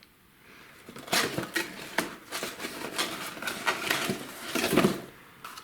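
Rustling and irregular light clicks of a fireworks package being handled by hand.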